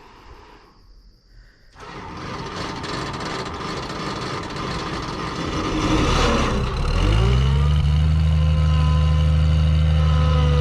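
Self-propelled swather engine being started: the starter cranks with a rough, grinding noise from about two seconds in, the engine catches about seven seconds in, and it settles into a steady idle.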